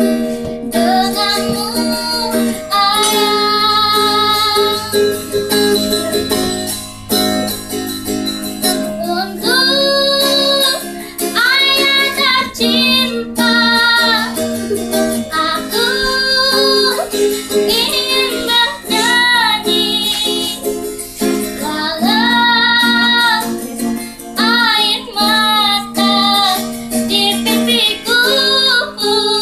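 A young girl singing a song while strumming chords on a ukulele, her voice wavering on the held notes.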